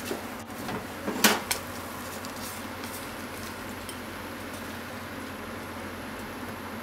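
Cookware handled over a plate: one sharp clank of a frying pan and chopsticks against a ceramic plate about a second in, with a couple of lighter knocks around it, then only a steady low hiss.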